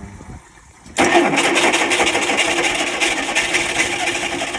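Vintage Baja boat's engine, with its freshly cleaned carburettor, starting up about a second in and then running loud and rough.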